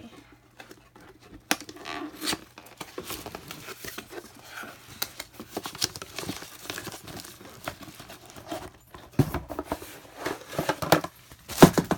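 A cardboard product box being opened by hand and its contents pulled out: paper and plastic packaging rustling and crinkling, with scattered sharp taps and scrapes, louder near the end.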